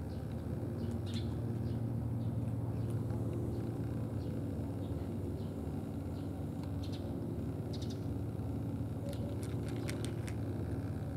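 Steady low mechanical hum running throughout. About nine seconds in come a few short, crisp clicks as a tabby cat eats from a tray, typical of chewing food.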